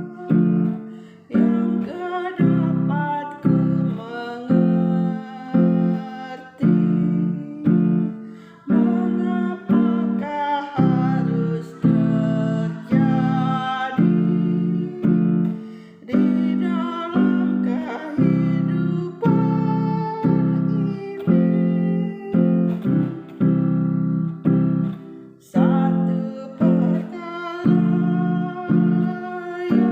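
Acoustic guitar strummed in a steady 4/4 rhythm in the key of F, a chord about every 0.7 s, with a hoarse singing voice carrying the melody over it.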